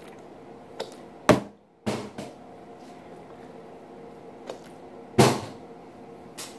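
Partly filled plastic water bottle being flipped and landing on a table with hollow thuds: one a little over a second in, a double knock around two seconds, and the loudest at about five seconds.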